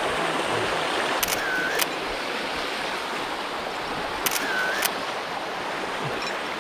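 Steady rush of stream water running over rocks. Over it, two camera-shutter clicks sound, each a double click about half a second long, one about a second in and one about four seconds in.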